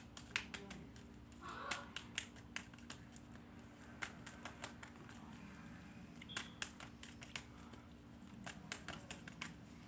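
Tarot cards being handled, giving scattered light clicks and taps at irregular moments over a faint steady hum.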